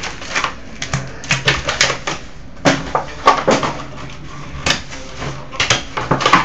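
Trading card packs and cards being handled: irregular crinkling of foil wrappers and clicks of cards being slid and flipped, with a few sharper snaps.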